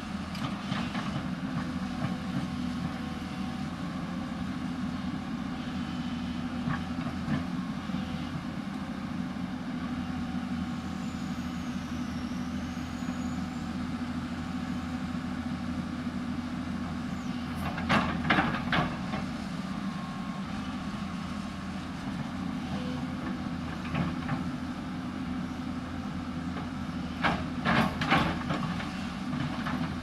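Hyundai 220 crawler excavator's diesel engine running steadily under working load while the bucket digs into the hillside. Louder scraping and clattering comes in twice, about eighteen seconds in and again near the end.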